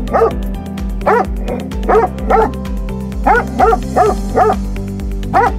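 Great Pyrenees barking in short repeated barks, about nine, several in quick pairs, each rising and falling in pitch. Background music with a steady beat plays under the barks.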